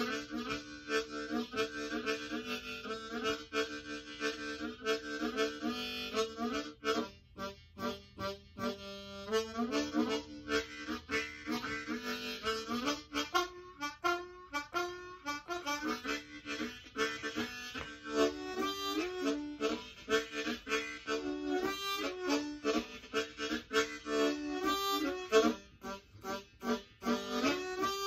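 Ten-hole diatonic harmonica played solo: a run of changing notes and chords, with short breaks and quick fluttering passages.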